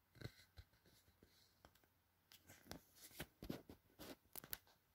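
Faint handling noises: light clicks and rustles, a few at first and then a quick run of them in the second half.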